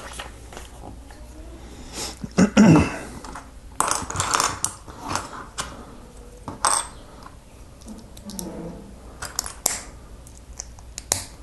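Small plastic Lego pieces clicking and clattering as they are handled and pressed together, in scattered sharp clicks with a louder clatter about two and a half seconds in.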